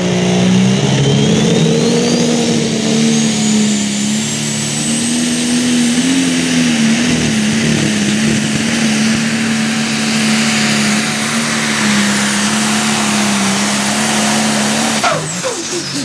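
Turbocharged diesel engine of a John Deere Pro Stock pulling tractor running at full throttle under load. It holds a steady engine note while a high turbocharger whine climbs over the first several seconds. About fifteen seconds in the throttle comes off: the engine note drops and the turbo whine winds down.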